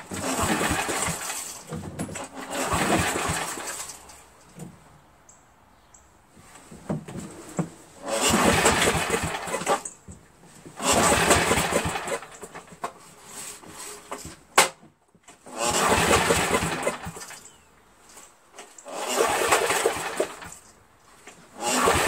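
Briggs & Stratton 11 HP single-cylinder engine on a generator being pull-started: about six hard pulls of the recoil starter, each cranking the engine over for a second or two without it catching, with a sharp click about halfway through. The engine has no spark, which the owner puts down to a broken ignition switch.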